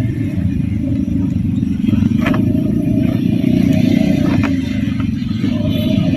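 Car running along a lane, heard from inside the cabin: a steady low engine and road rumble with a faint steady hum above it, and a couple of light knocks, once about two seconds in and again past the middle.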